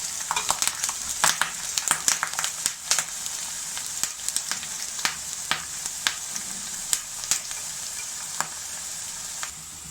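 Chopped onion, garlic, dried red chillies, curry leaves, peanuts and dals sizzling in hot oil in a kadai, with many sharp pops and clicks that are thickest in the first few seconds and then thin out; the tempering is being fried until light brown. The sizzle drops quieter just before the end.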